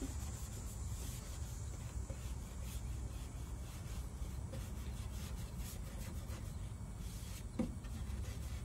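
Wax brush rubbing soft clear furniture wax into chalk-painted wood in repeated strokes, over a steady low rumble, with one light knock near the end.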